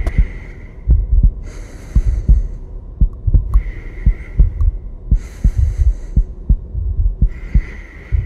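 Heartbeat sound effect: a low double thump about once a second. A hiss comes every three to four seconds, and a faint high tone sounds on and off.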